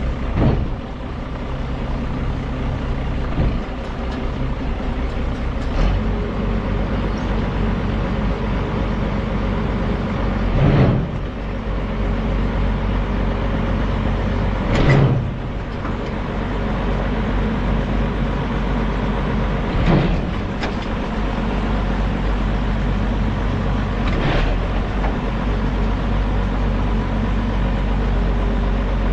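A heavy vehicle engine running steadily, its low hum getting louder about six seconds in, with about six short clunks or knocks over it.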